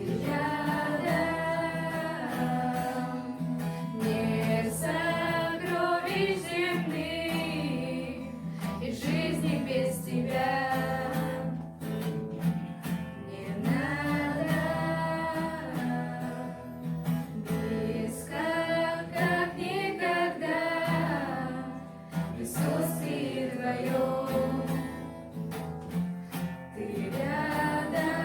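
Christian worship song: singing over acoustic guitar accompaniment.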